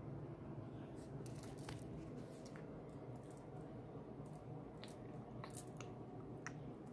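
Handling noise: faint, irregular small clicks and taps over a steady low hum.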